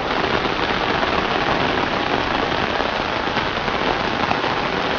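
Steady rain falling on wet paving and the surroundings, an even hiss with no break.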